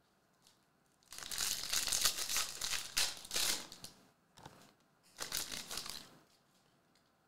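Foil wrapper of a Panini Mosaic Serie A soccer trading-card pack crinkling as it is opened by hand. There is a long spell of crinkling from about a second in, then a shorter one around five seconds in.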